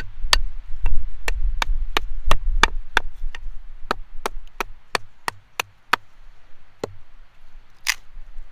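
Habilis Bush Tool bushcraft knife chopping into a branch 1.5 to 2 inches thick, in quick, even strikes of about three a second. The strikes stop about six seconds in. One more follows, then a longer, louder sound near the end.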